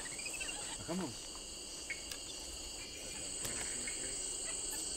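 Steady high-pitched drone of tropical forest insects, with a short rising run of chirps just after the start and a brief low call about a second in.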